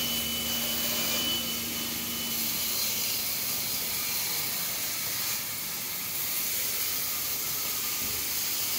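Compressed-air spray gun hissing steadily as it sprays enamel undercoat onto a wooden table.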